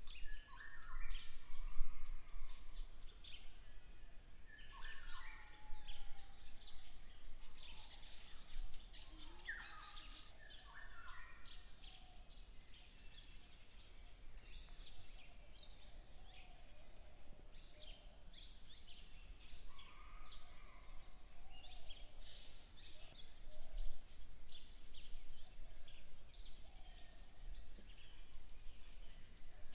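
Wild birds chirping and calling, many short overlapping calls, busiest in the first dozen seconds, over a steady low rumble.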